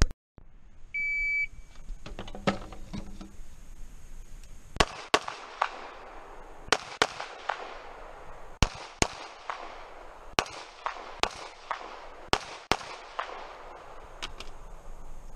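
A shot timer's start beep about a second in, then a dozen or so pistol shots over about eight seconds, mostly fired in quick pairs.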